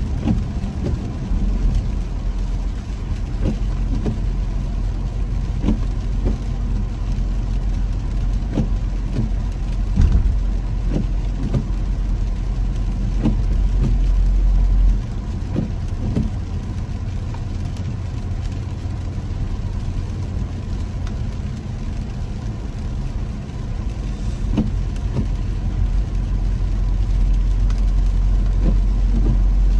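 Car cabin road noise while driving on wet pavement in rain: a steady low rumble of tyres and engine, with scattered taps of raindrops striking the windshield. The rumble drops suddenly about halfway through and builds again near the end.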